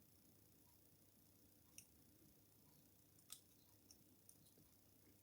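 A few faint, sparse clicks of a homemade pick bouncing off the levers inside an all-brass ICI triangle lever padlock, with near silence between.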